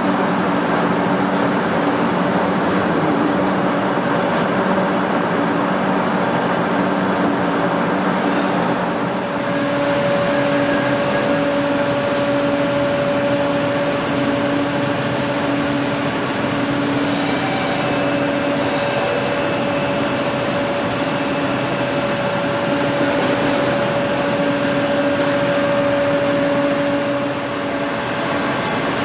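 Large Pama boring and milling machine running with a steady mechanical whine and hum. About nine seconds in the pitch changes: a single higher steady tone sets in and holds until it drops away near the end.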